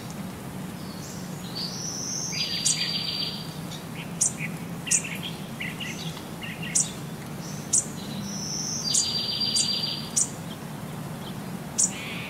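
High-pitched bird-like chirps and short rapid trills, with sharp clicks between them, over a steady low hum. The pattern repeats about every six and a half seconds.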